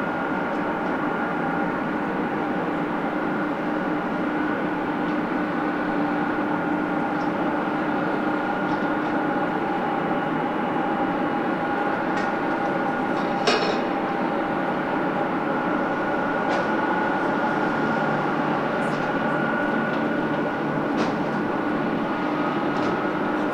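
Boeing 777F jet engines running steadily at low power: a constant rushing noise with a steady whine in it, and one brief click about halfway through.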